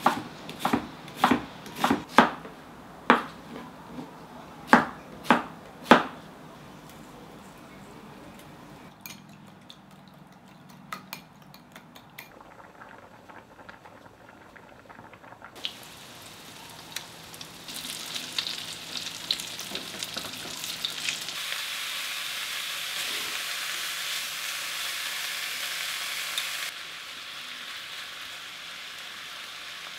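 Kitchen knife chopping onion on a wooden cutting board, about ten sharp strikes in the first six seconds. From about sixteen seconds in, sliced pork belly sizzles as it fries in a pan, growing louder and then dropping back near the end.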